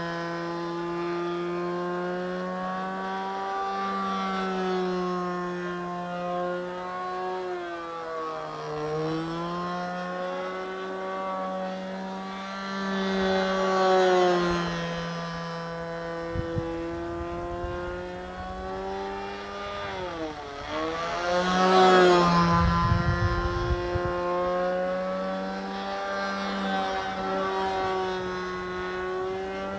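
Engine of a Phoenix Edge 540 radio-controlled model airplane with a can muffler, running in flight. Its pitch sags and rises as the throttle changes, dipping sharply about twenty seconds in and then surging to its loudest.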